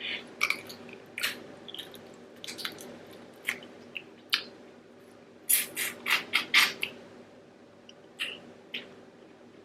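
Close-miked mukbang eating sounds of sauce-coated prawns: wet squishes and sharp clicks of shells being pulled apart and the food being chewed, with a quick cluster of them about two-thirds of the way through.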